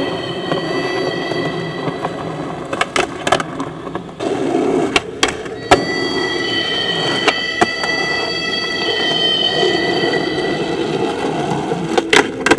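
Skateboard wheels rolling on concrete, with several sharp clacks of the board being popped and landing, and a cluster of clacks near the end as the board hits a bench.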